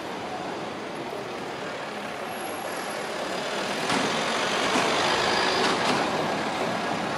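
Heavy road vehicle passing in the street. Its noise builds about three seconds in and is loudest, with a hiss, between about four and six seconds, then eases.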